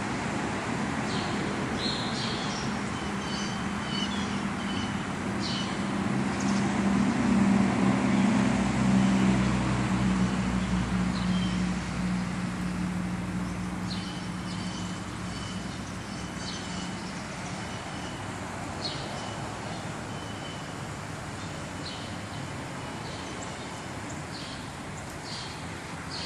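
Outdoor ambience: a motor vehicle's engine hum swells to a peak about eight seconds in and fades away over the next few seconds, as if passing by, over a steady background of traffic noise. Short high bird chirps come and go throughout.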